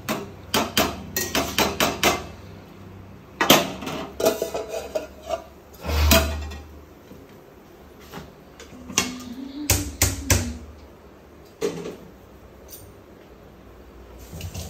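Metal kitchenware clattering: a utensil knocking against a cooking pot in a quick run of sharp clanks during the first two seconds, then a few more scattered clanks.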